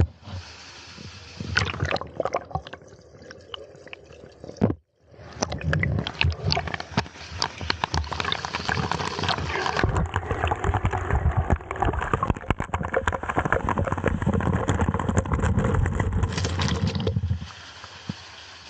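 Water rushing and splashing at a waterfall, close by. A quieter stretch breaks off about five seconds in, then a louder rush of splashing runs until near the end, where it drops back to a softer hiss.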